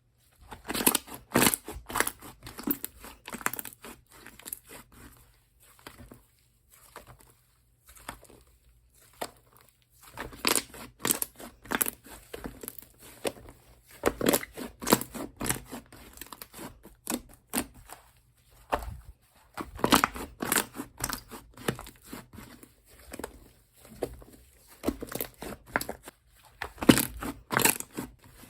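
Slime being pressed, squeezed and stretched by hand, giving clusters of small sticky clicks and pops that come in bunches with short pauses between.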